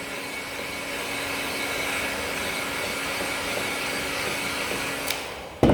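Hot air gun blowing steadily, its fan giving an even rushing noise with a faint hum, as it heats contact glue on TPU to activate it. A click about five seconds in and a sharp knock near the end.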